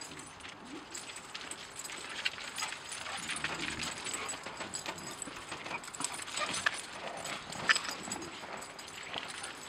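Dogs running and scuffling on thin frozen snow: scattered crunching footfalls and scrabbling paws, with one louder crunch near the end.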